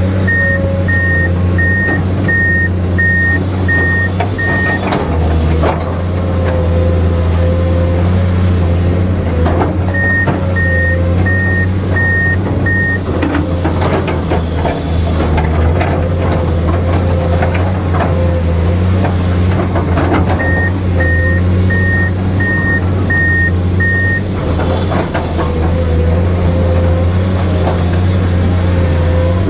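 Komatsu PC210 excavator's diesel engine running steadily under working load, with a steady whine and occasional clanks of the working gear. A back-up alarm beeps in three runs of about five to seven beeps each, at the start, around ten seconds in and around twenty seconds in.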